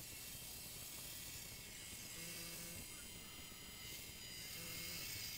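Small electric drive motors of a MiniQ 4WD line-follower robot whirring as it drives along the line, a faint high whine of several tones that grows a little louder about four seconds in.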